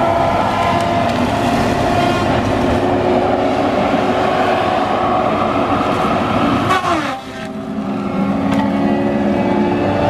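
Tigercat LX830D tracked feller buncher running hard, its engine and hydraulics giving a steady drone with several whining tones. Just before seven seconds there is a short crackle, the tones slide down in pitch and the sound briefly drops off, then builds back up.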